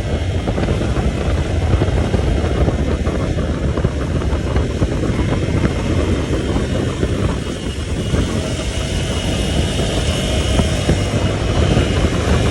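Vehicle on the move over rough ground, its engine and road rumble mixed with heavy wind buffeting on the microphone.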